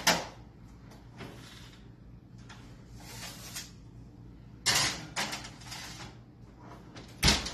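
A metal baking sheet clatters and scrapes as it is slid onto the rack of a kitchen oven, with knocks against the rack just before the middle. The oven door then shuts with a heavy thump near the end.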